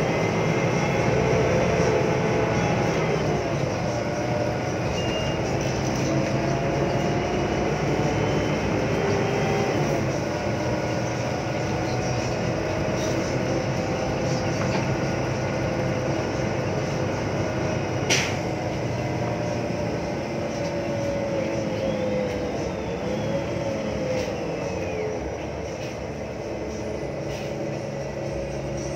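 Daewoo BH115H city bus under way, heard from inside: the diesel engine runs under the loud whine of its Voith automatic gearbox, the whine's pitch slowly rising and falling as the bus changes speed. A single sharp click about 18 seconds in.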